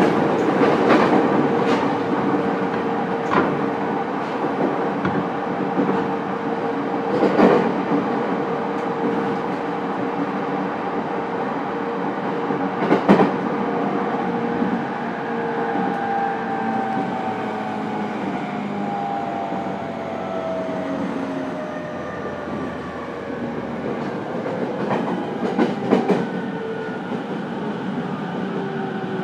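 JR East E231 series commuter train heard from inside a motor car, running with a steady rumble and a few sharp knocks from the wheels over rail joints. From about halfway the traction motor and inverter whine falls steadily in pitch as the train slows.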